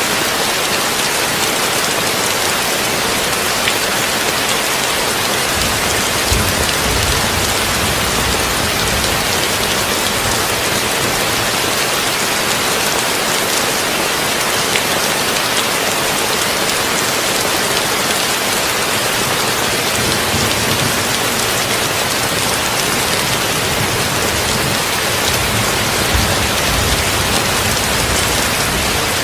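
Heavy rain drumming on a tin roof, a steady dense hiss, with brief deep rumbles about six seconds in and again near the end.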